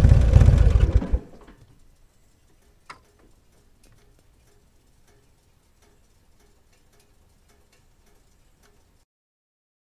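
Motorcycle engine running loudly, then cut off about a second in, leaving faint, regular ticking and one sharper click about three seconds in.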